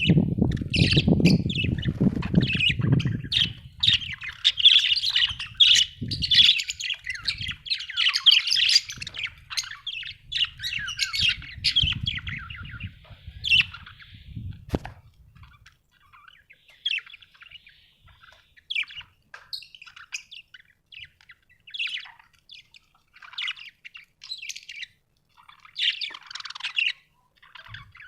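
Budgerigars chirping and chattering in quick, warbling runs, dense for about the first half and sparser after. A low rumbling noise sits under the first half and stops about halfway through.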